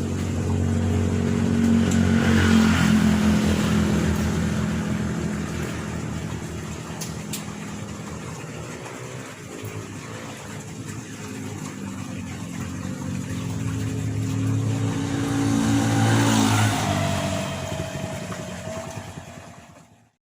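Motor vehicles passing by, two in turn: the engine sound swells to a peak a couple of seconds in, fades, and another swells and passes about three-quarters of the way through, its pitch dropping as it goes by. The sound cuts off abruptly near the end.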